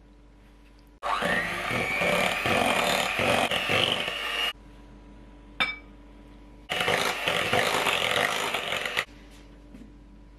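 Electric hand mixer beating cream into cream cheese in a glass bowl, running in two bursts of a few seconds each, its whine rising as it spins up at the first start. A short sharp clink comes between the bursts.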